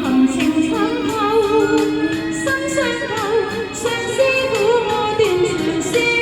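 Cantonese pop song with a full backing track and a wavering melody line with heavy vibrato.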